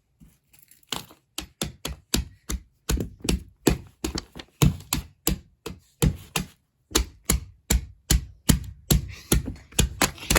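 A quick run of sharp taps, about two to three a second, with a pause about a second in and another around six seconds in.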